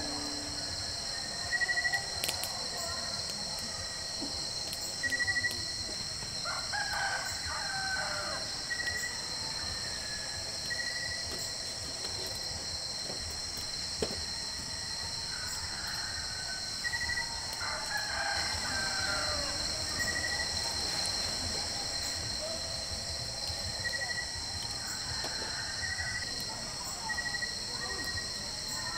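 Roosters crowing twice, once about a quarter of the way in and again about two-thirds through, over a steady high-pitched insect drone. Short high pips repeat every couple of seconds throughout.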